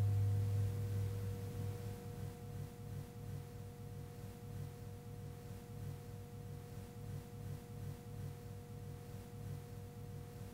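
Background music: a sustained ringing drone of steady pure tones. A struck low tone fades over about the first two seconds and leaves a softly pulsing low hum under the held higher tones.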